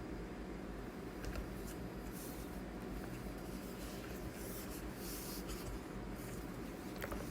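Light scratching and rubbing on a surface, in a few short patches, with a couple of soft clicks over a steady low hum.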